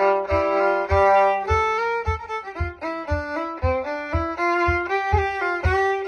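Solo fiddle playing a syrtos, a Greek instrumental dance tune: a quick melody moving note by note, with a low thump on the beat about twice a second.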